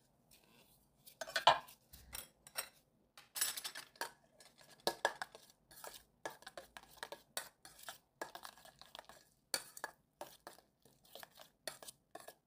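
A utensil clinking and scraping irregularly against a bowl as a filling is stirred and mixed.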